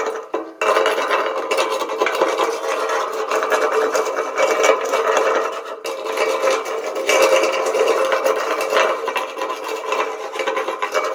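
Welder's chipping hammer chipping and scraping slag off the weld spots on steel C-channel: a continuous rapid metallic rasping and tapping, with the steel ringing under it.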